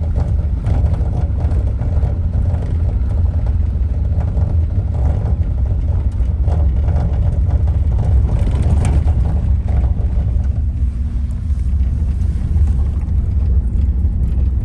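Wind buffeting the microphone in a steady low rumble, over the running of a tour vehicle driving up the road.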